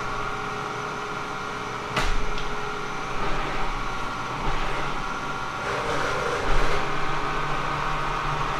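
Kearney & Trecker milling machine running steadily, a hum of several steady tones, with one sharp click about two seconds in.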